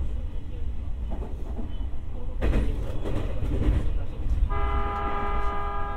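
Electric train standing at a platform with a low steady rumble. A rush of hissing noise comes about two and a half seconds in, then a steady horn-like tone starts about four and a half seconds in.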